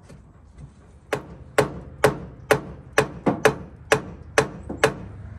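About ten sharp knocks, two or three a second, with a short ring, struck on the stuck cast-iron cylinder head of a 1935 International C-30 truck engine to break it loose from the block.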